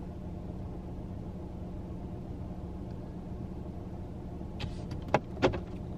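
Car engine idling, heard from inside the cabin as a steady low hum. A few short clicks and knocks come about three-quarters of the way through.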